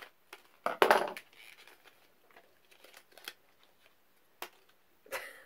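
Hands unwrapping a small mystery pin from its paper wrapping: a loud rustle of paper about a second in, then scattered small clicks and taps as the packaging is handled.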